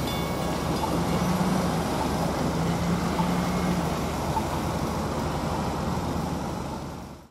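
Road traffic moving over a railroad crossing as the gates lift: steady tyre and engine noise with a low engine hum that comes and goes, fading out near the end. The crossing's mechanical bell strikes for the last time right at the start.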